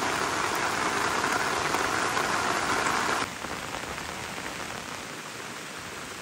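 Steady rain, an even hiss that drops abruptly to a quieter level about three seconds in.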